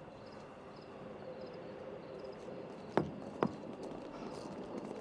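A ceramic bowl set down on a stone slab, giving two sharp knocks about half a second apart, around three seconds in. Behind them are a low steady hum and faint high chirps that repeat regularly.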